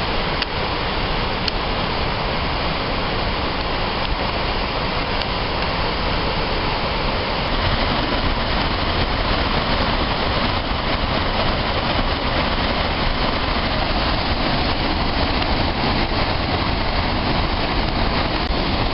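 Waterfall: a steady rush of falling water, getting slightly louder about halfway through.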